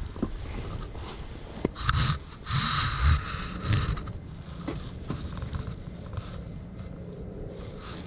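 Rustling and scraping of clothing rubbing against a body-worn camera's microphone as the wearer shifts, loudest in a run of bursts a couple of seconds in, with a few sharp clicks and knocks.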